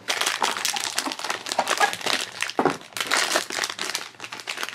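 Silver foil bag of a blind-box figure crinkling and crackling as hands work it open, a dense irregular run of crackles.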